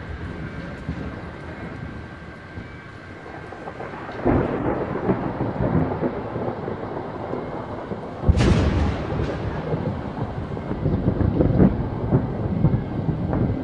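Thunder: the rumble of an earlier clap dies away, a new rolling rumble sets in about four seconds in, and a sharp crack about eight seconds in rolls on in long low rumbles.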